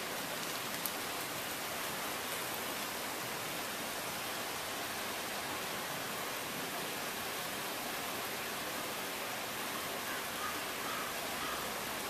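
Steady, even hiss of running water from an outdoor hot tub.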